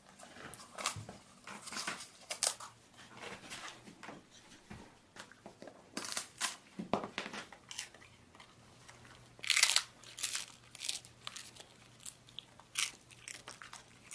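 A beagle chewing a crunchy yellow treat: a run of irregular crunches and bites, with the loudest burst about two-thirds of the way through.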